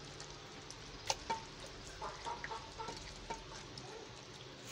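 Hands kneading sliced beef in a wet, sticky marinade of sauces and cornflour in a clay pot: soft squelches and scattered clicks, with two sharper clicks about a second in.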